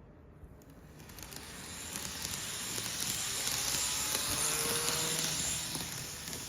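Odakyu electric train pulling out of the station: a rushing running noise of wheels on rail that builds up over a couple of seconds, holds, then eases off near the end, with a faint motor whine.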